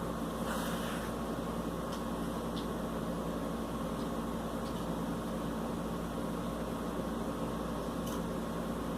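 A steady mechanical hum with a hiss, like a running fan or appliance, with a few faint ticks; no cough is heard.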